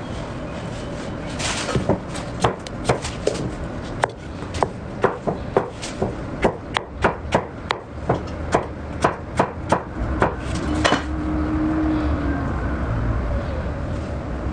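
Kitchen knife chopping through dragon fruit onto a cutting board: a run of sharp knocks, about two to three a second, over a steady background noise. The chopping stops about eleven seconds in.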